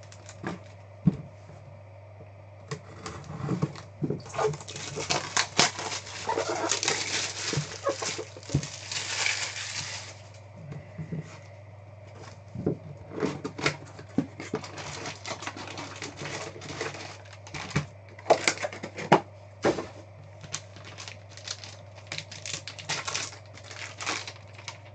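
Card box packaging being handled and opened: plastic wrap crinkling and tearing, with cardboard and plastic clicks and taps. The crinkling is densest from about four to ten seconds in, and sharp knocks are scattered through the rest.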